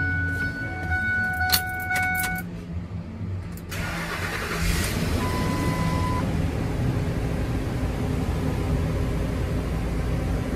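A Ford F-250 pickup's dash chime tone sounds with a few sharp clicks, then about four seconds in the engine starts and settles into steady running.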